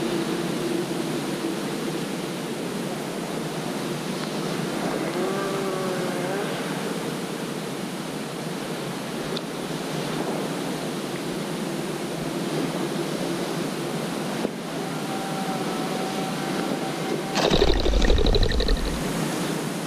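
Steady swishing through tall dry grass with wind on the microphone. About 17.5 s in, a sudden loud burst of about two seconds as a pheasant flushes.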